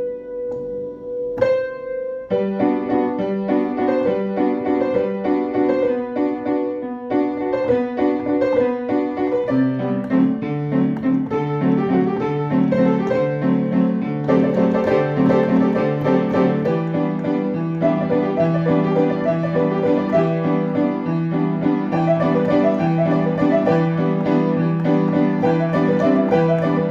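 Piano-like keyboard music: a single ringing note, then from about two seconds in a steady run of quick notes, with a lower bass line joining about ten seconds in.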